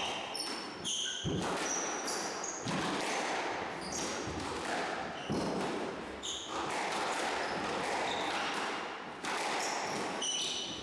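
Squash rally: the ball hitting the rackets and the walls about every second and a half, with trainers squeaking sharply on the wooden court floor, echoing in the enclosed court.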